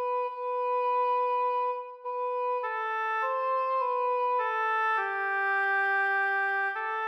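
Slow instrumental background music in long held notes with a woodwind-like tone. A single melody line is joined by a second part about two and a half seconds in.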